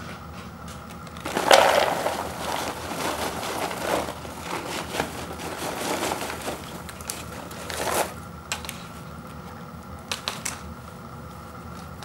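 Popped microwave popcorn being poured from its paper bag into a clear bowl: the bag crinkles and the popcorn tumbles in with a rustling crackle. It starts about a second in, is loudest at first, runs for about six seconds, and is followed by a few light ticks.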